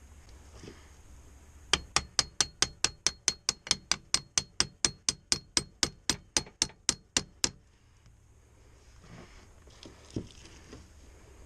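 A hammer striking metal in a quick, even run of about thirty blows, roughly five a second, each with a short metallic ring. The blows stop suddenly, and one softer knock comes near the end.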